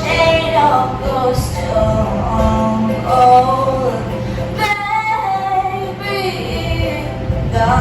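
Song with a woman singing over the music.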